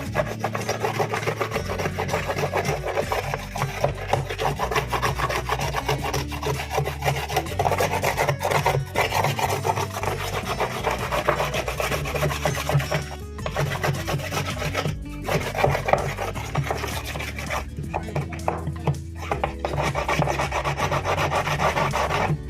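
A brush scrubbing a washing machine part, a rapid rasping rub with a few brief pauses, over background music.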